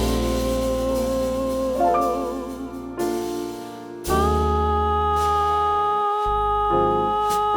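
A jazz ballad with voice, piano, double bass and drums. Over the first couple of seconds a singer holds a long note with vibrato, the music dips about three seconds in, and then it comes back with held chords over the bass.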